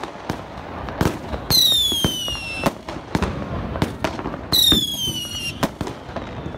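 Fireworks going off: a string of sharp bangs and pops. Twice, about a second and a half in and again near four and a half seconds, a whistling firework lets out a shrill whistle that falls in pitch for about a second.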